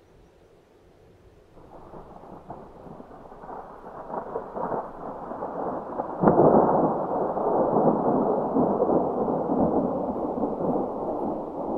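Thunder rumbling in a mountain thunderstorm, starting from near quiet and building over several seconds, with a sharp crack about six seconds in and a long loud rumble after it.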